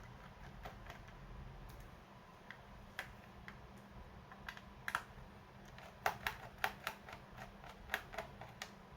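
Irregular light clicks and taps of hands and a tool working on a laptop's plastic case, scattered at first and coming thick and fast in the last three seconds.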